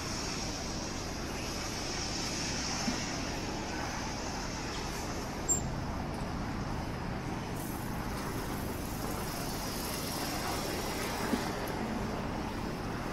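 Steady city street traffic noise, cars passing, with three brief clicks along the way.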